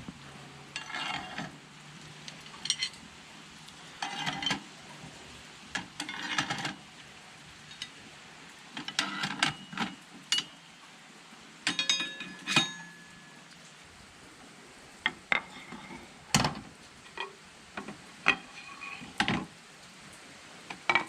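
Scattered metal clinks and rattles of hardware being handled, a dozen or so irregular bursts, some with a short ringing tone.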